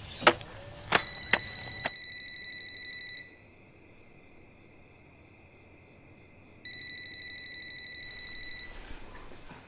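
A few sharp knocks in the first second and a half, then a cordless landline phone ringing with a steady electronic tone: two rings of about two seconds each, a little over three seconds apart.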